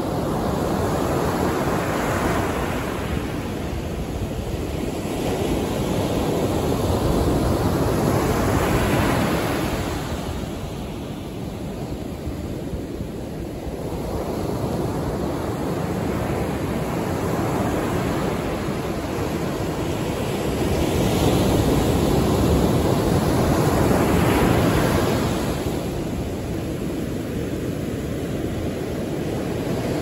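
Ocean surf breaking and washing up a sandy beach: a continuous rushing that swells and eases every several seconds as each wave comes in.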